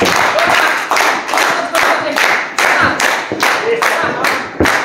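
Hands clapping in a steady rhythm, about three claps a second, as spectators cheer on the downed wrestlers.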